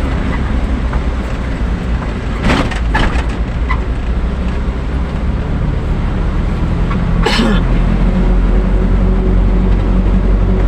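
Delivery truck's engine running steadily with road noise, with a few short sharp knocks or rattles about two and a half to three seconds in and another about seven seconds in.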